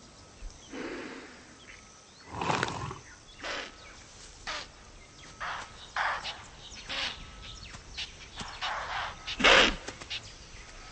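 A leopard smothering an impala by the muzzle: a series of about ten short, rasping, breathy snorts and growls from the struggle. The loudest come about two and a half seconds in and again near the end.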